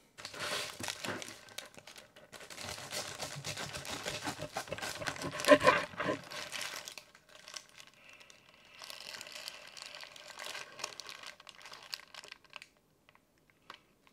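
Burrito wrapper crinkling and tearing as a wrapped California burrito is handled and pulled apart in half. It is densest and loudest through the first half, with a quieter patch of crinkling later and scattered small crackles near the end.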